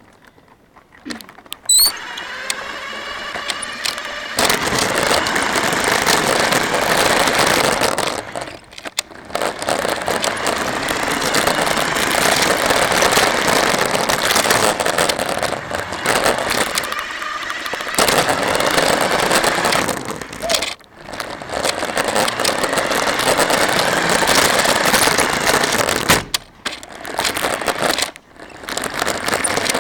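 Radio-controlled car driving, heard from a camera mounted on it: its motor and gears whine as it speeds up, then a loud, rough rattle of running gear and wheels on the ground, dropping off briefly about five times as it stops and sets off again.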